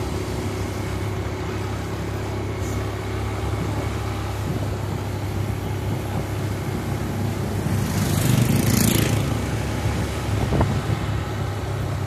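Motorbike engine running steadily at low speed while riding, with road and wind noise. About eight seconds in, an oncoming motorbike passes close by, briefly louder.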